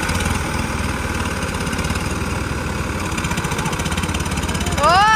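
Diesel tractor engines of a John Deere and a Ford 3600 idling steadily with an even low throb while the two tractors sit chained back to back. Near the end a loud whistle-like tone rises sharply in pitch and then holds.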